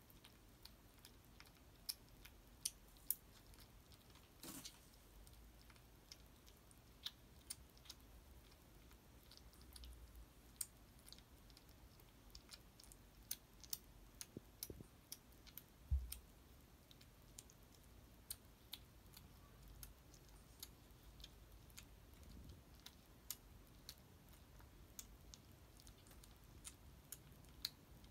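A kitten crunching dry kibble: faint, irregular crunches and clicks throughout, with one soft thump about halfway through.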